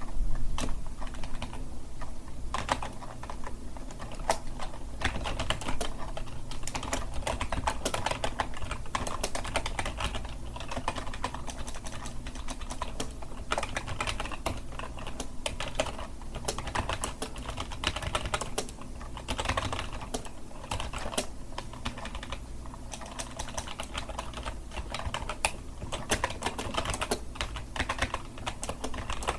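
Steady, fast typing on a computer keyboard, a dense run of irregular key clicks.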